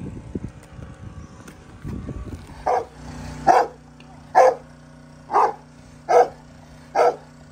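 A golden retriever barking six times at an even pace, a bark about every second, the barks starting a little under three seconds in. Before the barking, low scuffing and rustling.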